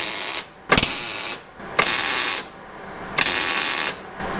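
Hobart MIG welder arc crackling in four short bursts, each about half a second long: tack welds joining two pieces of 2.5-inch exhaust pipe into a Y-pipe.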